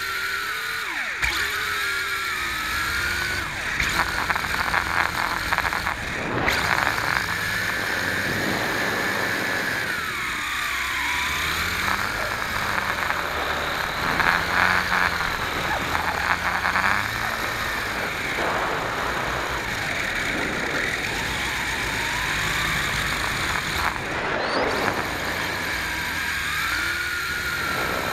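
Electric motors and propellers of a WLtoys V262 quadcopter, heard from its onboard camera. A steady whine whose pitch keeps rising and falling as the throttle changes.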